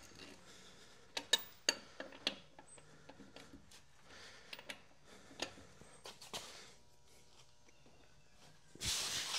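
Socket wrench working the truck's lug nuts: a few sharp metallic clicks and knocks, the loudest cluster about a second in, then lighter taps as the socket is moved from nut to nut. A brief rough scraping rush near the end.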